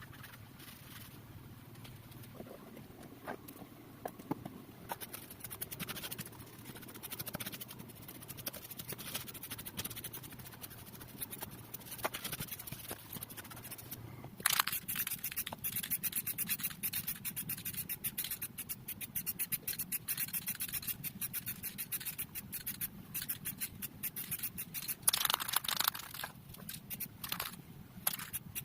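Rapid, repeated scraping strokes on a hard surface, faint at first and becoming louder and denser about halfway through, with a louder stretch near the end.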